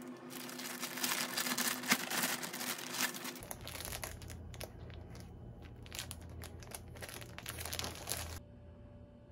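Plastic packaging crinkling and rustling as a shirt in a clear poly bag is pulled out of a plastic shopping bag and handled. It is densest and loudest in the first three seconds, then comes in scattered crackles, and it cuts off abruptly near the end.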